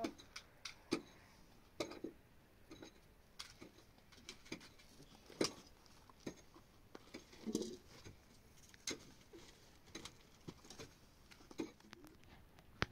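Irregular light knocks and taps, about one a second.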